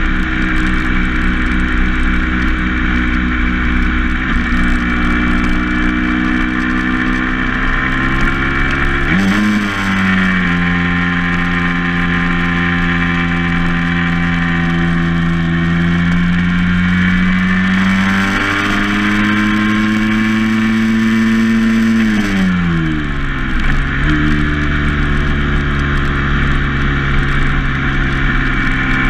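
Vehicle engine heard from on board while driving along a country road. Its pitch steps up about nine seconds in, rises again around eighteen seconds, then drops sharply a few seconds later and settles lower.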